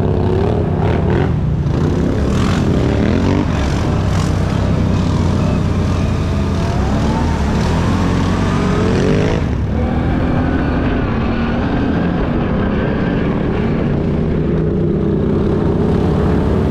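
ATV engine running under throttle. Its pitch climbs as it speeds up about two seconds in and again from about six to nine seconds, then eases off.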